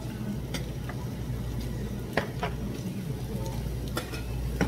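Meat cooking on a tabletop grill plate with a steady sizzle, and several sharp clicks of utensils and dishes on the table.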